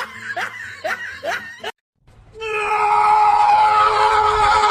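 Short rising squeaky cries about twice a second. Then, after a sudden cut to silence, a loud, steady scream held for about two and a half seconds.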